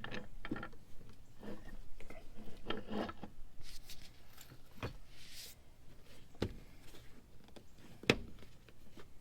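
Floor jack being worked against a truck's bumper: three sharp clicks about a second and a half apart, the last the loudest, after a stretch of fainter clicks and rustling.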